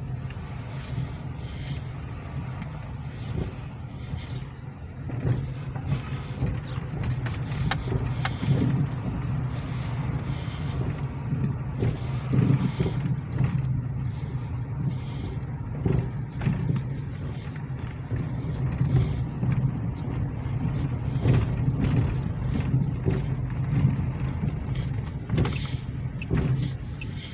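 Car driving at low speed, heard from inside the cabin: a steady low drone of engine and tyres, with a few short knocks along the way.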